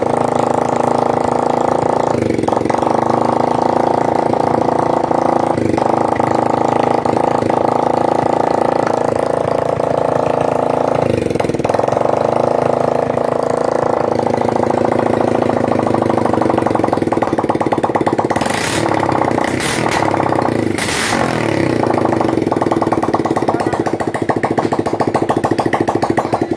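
Hero Hunk motorcycle's single-cylinder four-stroke engine running steadily. Its note dips briefly a few times, and there are three sharp cracks a little past the middle.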